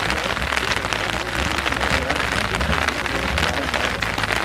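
Steady rain pattering, a dense even patter of many small drops.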